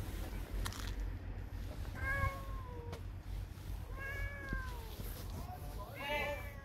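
Stray cat meowing three times, about two, four and six seconds in, each call drawn out and sliding down in pitch at its end, asking to be fed.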